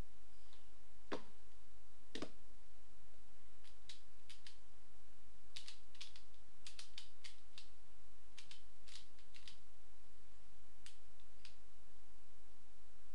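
Pyraminx puzzle being turned fast in the hands, a quick irregular run of sharp plastic clicks as its faces and tips are twisted, with two duller knocks in the first couple of seconds. A steady low hum lies underneath.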